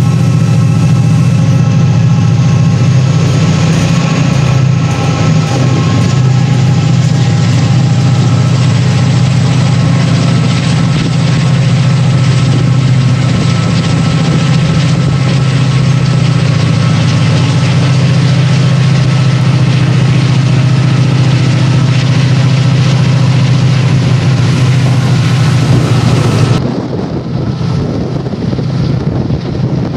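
Class 68 diesel locomotive's Caterpillar V16 engine working under power: a loud, steady drone with several steady tones above it. About three seconds before the end the engine sound drops away abruptly, leaving a quieter rushing noise.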